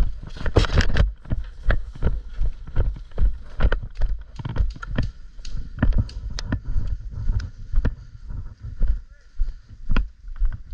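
Footsteps of a player running with gear on, an irregular series of knocks and thuds about two or three a second, over low rumbling from the body-worn microphone being jostled.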